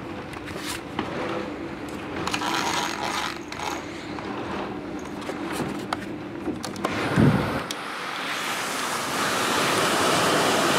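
Rustling and handling noise at first, then a low thump about seven seconds in. After it the steady hiss of heavy thunderstorm rain, heard through an open window screen, comes in loud.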